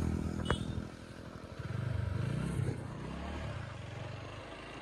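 Motorcycle engine running under way, heard from the pillion seat, its pitch rising and falling as the throttle changes, over steady wind and road noise. A sharp click about half a second in.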